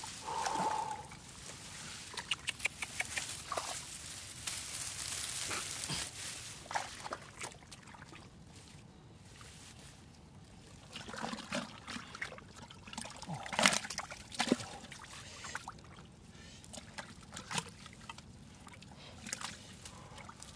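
Shallow water sloshing, splashing and trickling, with many small irregular splashes and knocks; busiest in the first third and again about halfway through.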